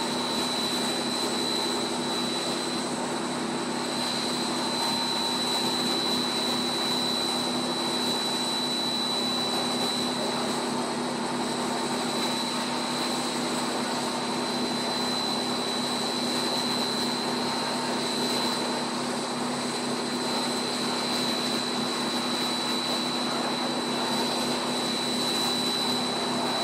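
Monolayer blown film extrusion line running: a steady drone of motors and moving air with a constant high-pitched whine.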